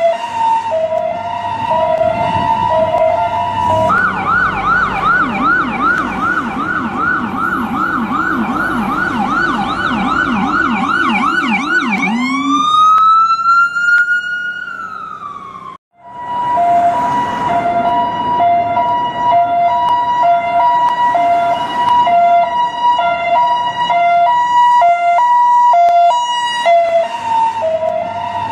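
US ambulance electronic siren cycling through its tones. It starts with a high-low two-tone alternation, switches about four seconds in to a fast yelp of about four sweeps a second, and near twelve seconds gives one long wail that rises and slowly falls before cutting off just before sixteen seconds. Then the high-low two-tone alternation resumes.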